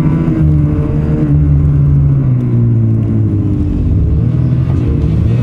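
Snowmobile engine running under steady throttle while riding, its pitch rising and falling gently as the throttle changes.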